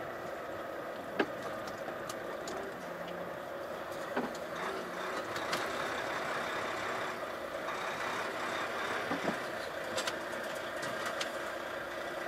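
Volvo FH truck running steadily at low speed, with a few short sharp clicks and knocks, the loudest about a second in.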